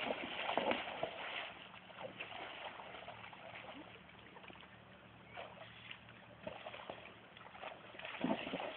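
Horse wading and pawing in shallow water, splashing and sloshing, louder in the first second or so, then quieter with scattered splashes.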